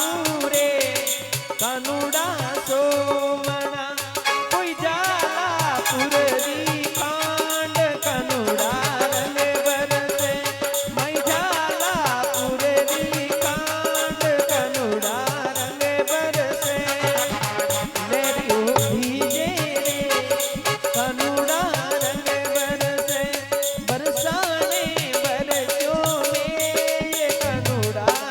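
Instrumental interlude of Rajasthani folk bhajan music: a wavering melody line over a steady held note, with fast, even percussion throughout.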